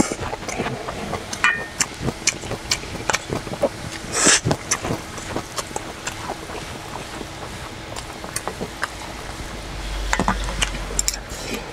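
Eating and mixing sounds: chewing a spoonful, then a wooden spoon stirring and scraping rice and enoki mushrooms around a stainless steel bowl, with many small clicks and knocks. A brief louder rush of noise about four seconds in.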